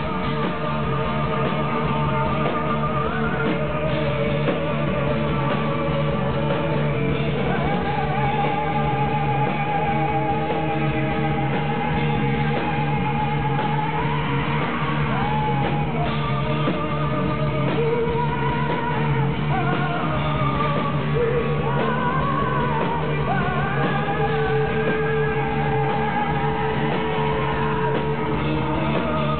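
Live heavy rock band playing loud, dense music with electric guitars, and a singer holding long, wavering notes over it.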